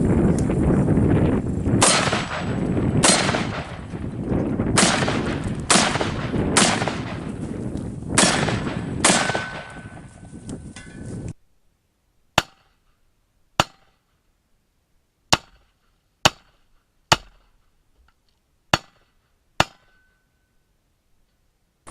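AR-15 pistol with a 10.5-inch barrel firing .223 in a string of about seven shots, each a sharp crack with a ringing tail, spaced roughly a second apart. About halfway through the background cuts out suddenly, and about seven more short, dry cracks follow at a similar pace.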